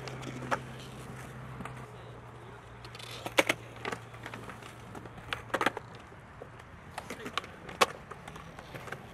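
Skateboards on smooth concrete during flat-ground flip tricks: sharp clacks of tails popping and decks and wheels slapping down, a few at a time, with wheels rolling in between.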